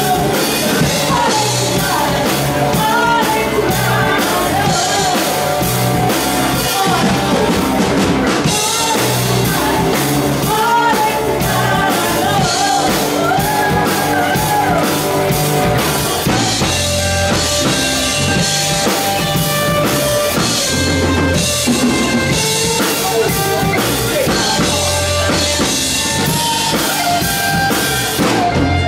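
Live rock band playing, with drum kit and electric guitars, and a woman singing lead. The singing is strongest in the first half.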